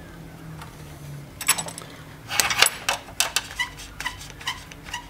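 Plastic-and-metal clicking of an Irwin Quick-Grip bar clamp being worked by hand: a clatter of knocks, loudest a little past the middle, then a run of light clicks about three a second as the trigger is squeezed.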